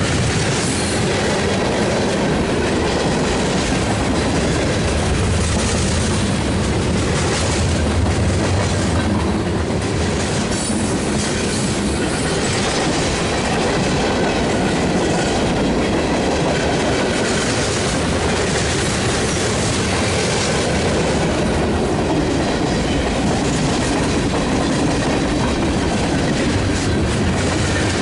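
Freight cars of a mixed freight train (gondolas, covered hoppers, boxcars, tank cars) rolling past at close range. Their steel wheels make a steady, loud, continuous rumble on the rails throughout.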